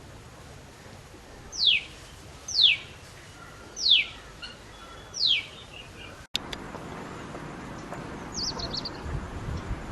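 A bird gives a sharp, quickly falling whistle four times, each call less than half a second long and about a second apart. Just past the middle the background changes abruptly, and near the end a brief burst of faint high chirps follows.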